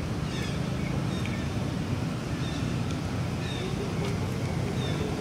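Steady low rumble of wind on the microphone, with a few faint, short high chirps over it.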